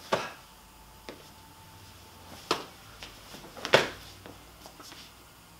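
Sharp slaps of a hand striking the foot during tornado and crescent kicks: three loud cracks, one right at the start and two about a second apart near the middle, with softer taps and scuffs of shoes on a hard floor between them.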